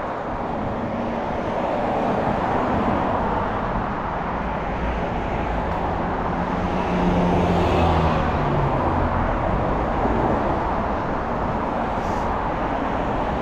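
Road traffic on a multi-lane street: steady tyre and engine noise from passing cars, swelling as a vehicle passes closest about seven to eight seconds in.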